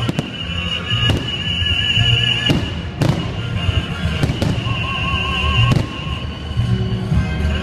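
Fireworks salute: aerial shells bursting in a string of sharp bangs, roughly one every second, over music playing underneath.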